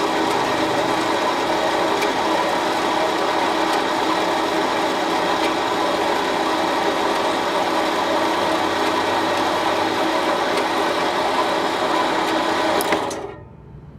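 Metal-cutting band saw running steadily under load as it cuts a thin slice off metal stock. Near the end there is a sharp click and the saw shuts off, its sound dying away within about half a second.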